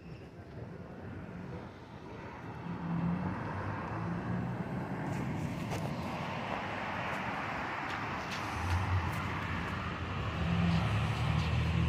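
Outdoor road-traffic noise: a motor vehicle's engine hum and tyre hiss, growing louder a few seconds in.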